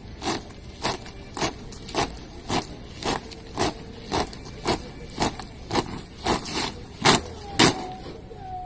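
Drill squad's boots striking the ground in step, a steady beat of about two stamps a second, with two louder stamps near the end.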